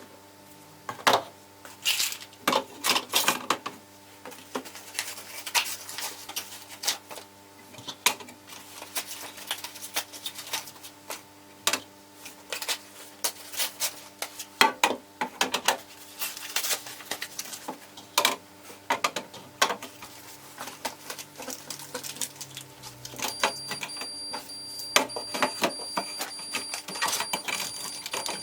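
Irregular clicks, taps and knocks of kitchen containers being handled and set down on shelves, over a faint steady hum.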